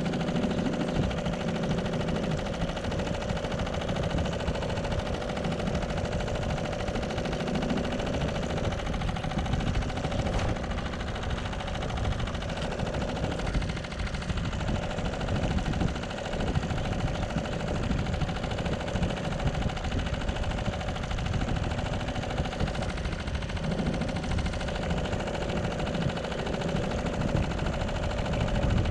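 Wind buffeting the microphone, a continuous rumble with rapid crackle, over choppy river water, with a faint steady hum underneath.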